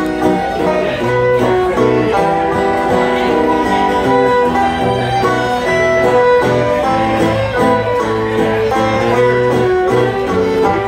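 Fiddle, banjo and acoustic guitar trio playing a Ukrainian folk tune live, the fiddle carrying the melody over the strummed and picked strings.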